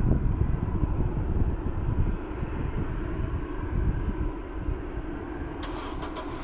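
Engines of a Boeing 777-200ER, Pratt & Whitney PW4000-series turbofans, running as the airliner taxis: a low rumble with a faint steady whine, slowly fading.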